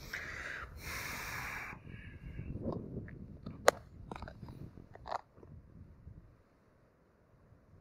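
Close-up hand handling of fishing bait and tackle: a rustle for the first second and a half, then crunching from crumbly groundbait in a tray and several sharp clicks from the cage feeder and hook being worked, the loudest click about three and a half seconds in. It goes quiet after about six seconds.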